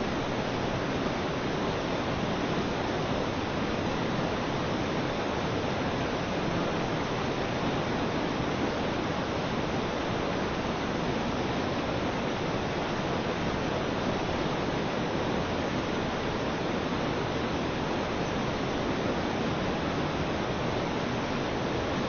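Water rushing and churning under a turning wooden mill water wheel, a steady, even rush that does not change.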